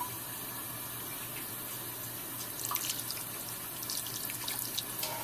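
Water running steadily, with a few small drips or splashes about halfway through and a faint low hum underneath.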